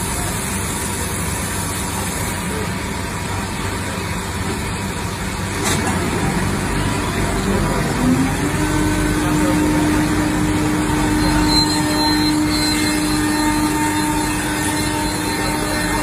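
Selexx Pal CNC router running, a steady machine noise. About halfway through, a hum rises in pitch and then holds steady as the spindle comes up to speed.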